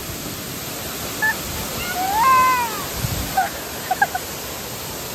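Waterfall rushing steadily. About two seconds in a short high-pitched call rises and then falls, and a few brief chirps come around it.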